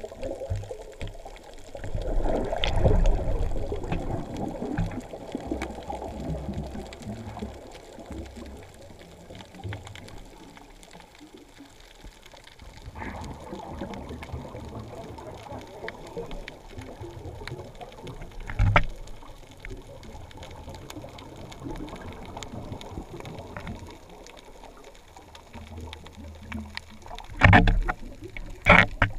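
Muffled underwater water noise heard through the camera's waterproof housing: a low, dull rushing and sloshing of water that swells louder a few times, a few seconds in, once midway, and twice near the end.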